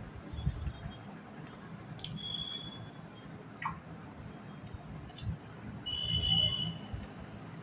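Mukbang eating sounds: a person chewing food, with soft wet mouth clicks and squishes and a few low thuds.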